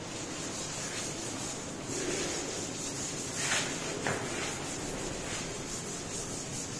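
Cloth duster rubbing across a chalkboard, wiping off chalk in uneven strokes, with a couple of sharper strokes about halfway through.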